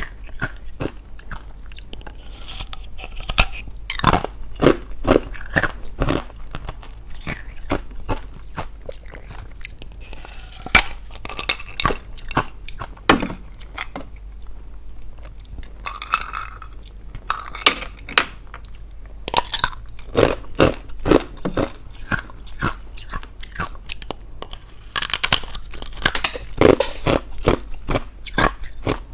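Hollow, glass-shaped clear ice being bitten and chewed close to the microphone: a run of sharp, irregular cracks and crunches as pieces snap off the thin ice shell and are crushed between the teeth.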